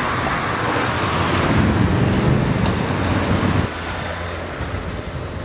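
Road traffic: motor vehicles passing close by on a busy road, swelling as one passes about two seconds in. The noise drops suddenly a little over halfway through.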